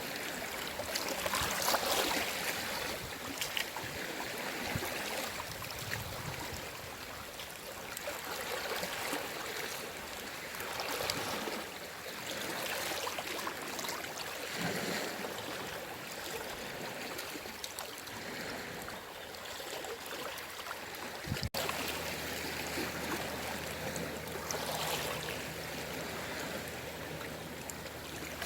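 Small, gentle sea waves washing and lapping at the shore: a steady hiss of moving water that swells and eases every few seconds. There is one brief dropout about three-quarters of the way through.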